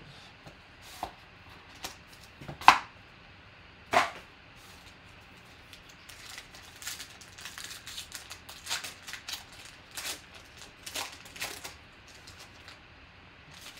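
A trading-card box being opened and its foil pack wrapper torn and crinkled, with two sharp snaps about two and a half and four seconds in, the first the loudest, then a run of short crinkles and crackles as the cards are slid out.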